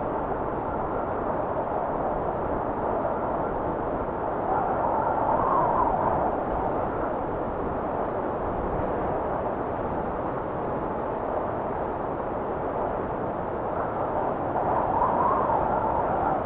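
Wind blowing steadily, with two louder gusts, one about five seconds in and one near the end.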